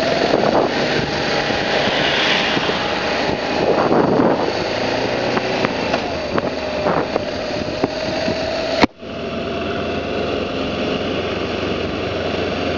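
A BMW G650GS motorcycle's single-cylinder engine running steadily while riding at low speed, mixed with wind rush on the microphone. The sound drops out abruptly for a moment about nine seconds in, then carries on.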